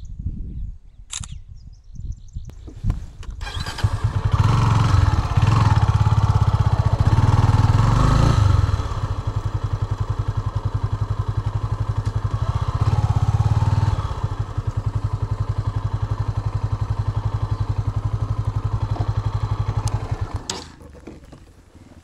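Motorcycle engine starting about three seconds in, running harder twice for a few seconds with a steady idle in between, then stopping near the end.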